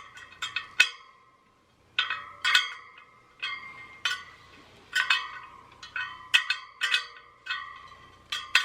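Spoke wrench clinking against the metal spokes and nipples of a motorcycle wheel as loose spokes are tightened one by one. The sharp clicks come at an uneven pace, each leaving the spokes ringing briefly, with a pause about a second in.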